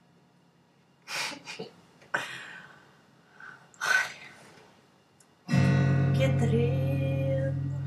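A few short breathy sounds, then about five and a half seconds in an acoustic guitar chord is strummed once and left ringing, slowly fading away.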